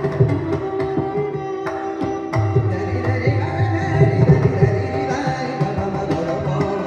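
Carnatic classical music: a young vocalist singing with violin accompaniment and a mridangam (double-headed barrel drum) playing a dense stream of strokes, over held steady pitches.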